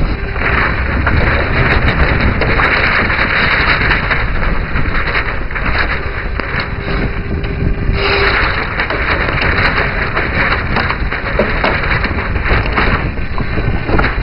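Wind buffeting the small onboard camera's microphone, with water rushing and splashing along the hull of a Ten Rater model yacht under sail; the hiss of the water swells and eases several times.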